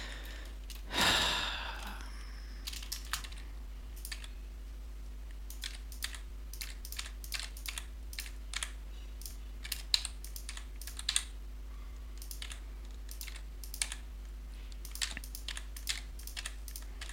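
Computer keyboard keys and mouse buttons clicking singly and at irregular intervals, about one to three taps a second, as shortcut keys are pressed one at a time rather than typed. A short rushing noise comes about a second in, and a faint steady hum runs underneath.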